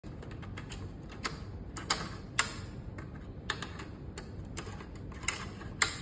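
Fibre-optic cassettes being slid into the pull-out tray of a 1U patch panel and snapped into place: a string of small plastic-and-metal clicks and rattles, with a few sharper snaps about two seconds in and again near the end.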